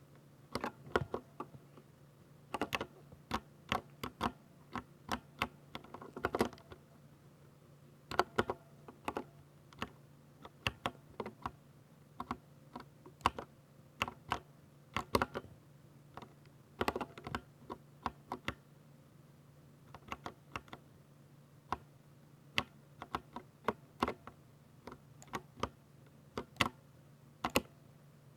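Typing on a 60% mechanical keyboard with silver switches: sharp, irregular key clicks in quick runs broken by short pauses, over a faint steady low hum.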